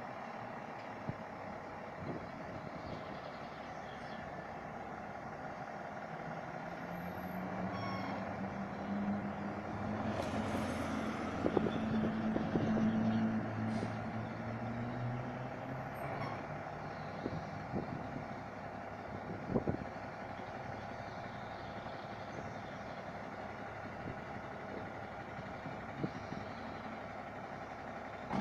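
Diesel engine of a fire brigade turntable ladder truck running as it moves slowly off, growing louder for several seconds in the middle together with a passing car. There is one brief sharp click about two-thirds of the way through.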